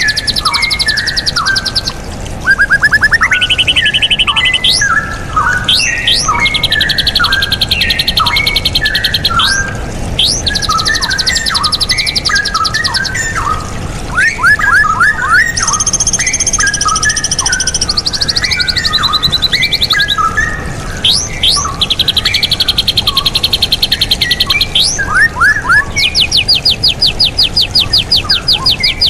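Straw-headed bulbul (cucak rawa) singing loudly and continuously: bubbling phrases of short liquid notes, interleaved again and again with rapid high trills of evenly repeated notes that last a second or two each.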